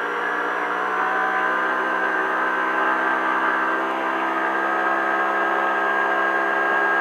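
Polaris RZR UTV engine heard from inside the car, running at steady revs at speed with a constant, unchanging drone.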